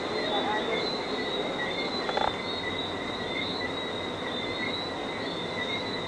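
Steady, high-pitched night chorus, two wavering shrill tones over a constant hiss, typical of a tropical night of insects and whistling frogs. One short clack about two seconds in, fitting a cue striking a pool ball.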